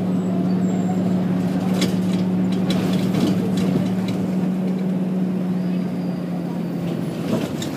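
Volvo B10BLE single-deck bus heard from inside while on the move: its engine and cooling fan give a steady, loud hum that dips at the very end. Short rattles come through now and then.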